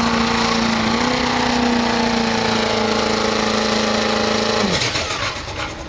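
Turbocharged Chevrolet Silverado diesel pickup under full throttle pulling a sled: a loud, steady engine note with a high turbo whistle. About four and a half seconds in, the driver lets off and the engine note and whistle drop away sharply.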